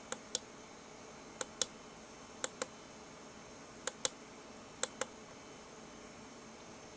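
Small tactile push-button on a kit-built LED clock pressed five times, each press a quick double click of press and release, about one press a second.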